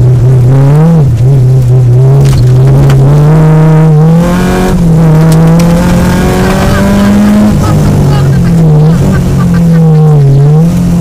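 Peugeot 205 GTI rally car's four-cylinder engine heard loud from inside the cabin, revving hard on a rally stage. Its pitch climbs under acceleration and falls with gear changes and lifts, with a sudden drop about seven and a half seconds in and short dips near the end.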